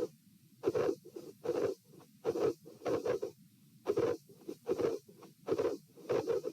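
Heart sounds recorded at the chest: a regular heartbeat of about 75 a minute, each beat a short loud sound with fainter sounds between the beats. The uploader presents them as a possible cyclic S3 with an aortic vascular click from a dilated aortic root.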